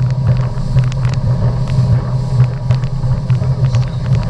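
Motorboat running fast, its engine a steady low drone, with irregular sharp knocks over it.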